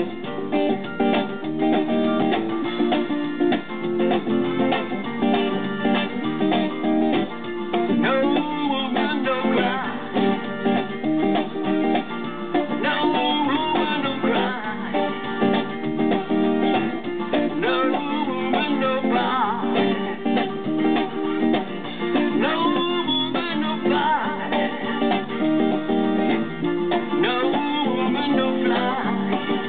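Solo electric guitar strummed in a steady, repeating chord rhythm, with a man singing over it at times.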